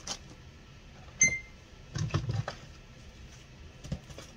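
Small items being handled in a plastic bin: light rustling and clatter, with a sharp click about a second in followed by a brief high ringing tone.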